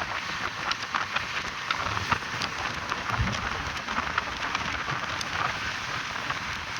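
Running noise of a moving passenger train: a steady rushing hiss dotted with many sharp, irregular clicks and rattles.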